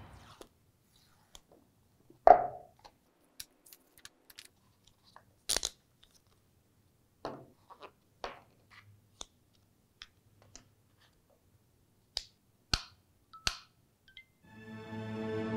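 Scattered crinkles, taps and clicks of AirPods Pro packaging being handled: a paper-sealed cardboard box turned over and opened, the loudest crinkle about two seconds in. A few sharper clicks near the end come as the white charging case is taken out and handled. Music begins to fade in at the very end.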